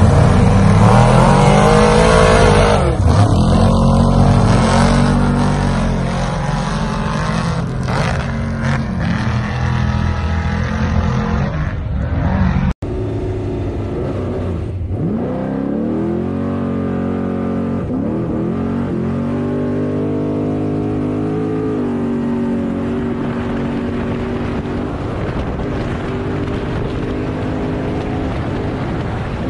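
Trophy truck engines at full throttle. First a truck revs hard and pulls away; after a cut, the engine heard on board climbs in pitch and drops back several times as it upshifts through the gears while accelerating hard, then holds a steady high speed.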